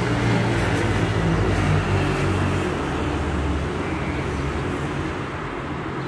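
Road traffic: the steady rush of passing vehicles with a low engine hum that fades out after about four seconds.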